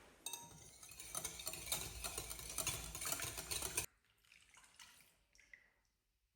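Water running from a tap for about three and a half seconds, cut off suddenly, followed by a few light knocks.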